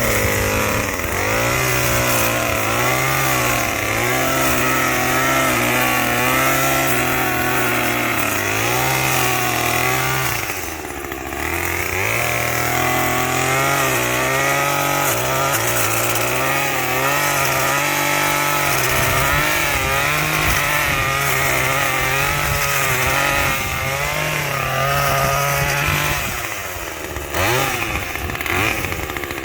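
Small chainsaw running at high revs while cutting brush and vines. The engine drops back briefly about ten seconds in, then revs up again and falls off near the end.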